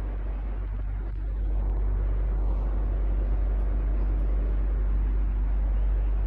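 Electric fan running steadily: an even rush of air over a strong low motor hum, a little louder from about a second and a half in.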